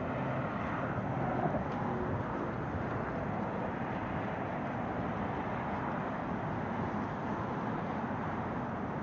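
Steady city street ambience: a continuous wash of traffic noise with no distinct events standing out.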